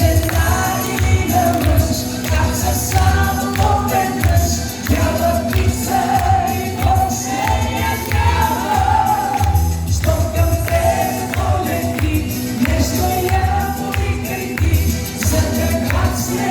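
Live band playing an instrumental passage of a Bulgarian pop song, with a steady bass beat under a flowing melody line.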